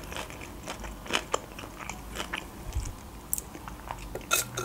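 A mouthful of sushi rolls being chewed, with soft wet mouth clicks and smacks. Near the end comes a short sip through a plastic straw.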